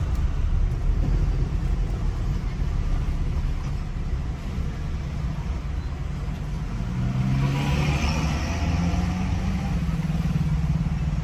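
Car driving slowly on a city street, heard from inside the cabin: a steady low engine and road rumble. About seven seconds in, a louder engine note rises and holds to the end.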